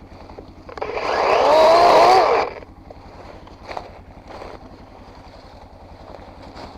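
Vehicle engine running with a steady low throb, revved hard once for about two seconds, about a second in, its pitch rising and then dropping back.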